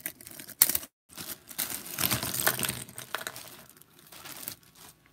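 Clear plastic bag crinkling while small hard plastic toy accessories click and clatter against each other as they are handled.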